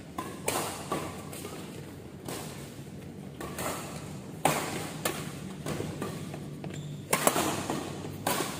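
Doubles badminton rally: sharp racket strikes on the shuttlecock, irregularly about a second apart with a quick flurry of hits near the end, each echoing in the large hall.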